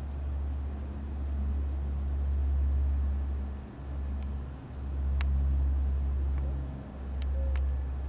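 Low wind rumble buffeting the microphone, swelling and easing in waves, with faint high bird chirps and a few light clicks over it.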